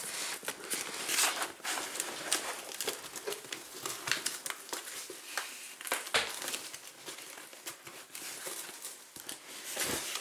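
A shipping box being worked open by hand: irregular crinkling, crackling and tearing of the cardboard and packaging.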